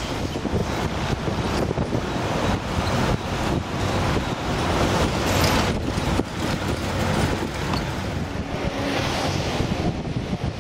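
Steady ride noise from on board a moving 1950s Ford Fairlane: engine rumble, tyre and road noise, and wind.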